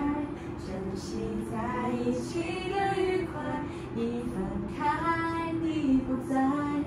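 A song with a woman's singing voice over musical accompaniment.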